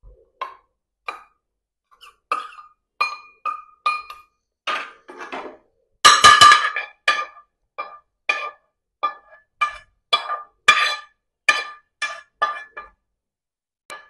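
Metal spoon clinking and scraping against a steel bowl and a frying pan as cooked sweet corn is spooned out: a string of short ringing clinks about every half second, loudest about six seconds in.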